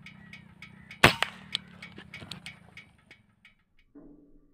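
A single sharp air rifle shot about a second in, over a faint rhythmic clicking of about four a second that fades out shortly after.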